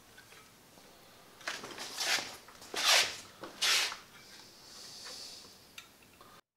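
Caulking gun laying a bead of silicone sealant around a PVC elbow: a handful of short scratchy squeezes over about two seconds, then a fainter hiss.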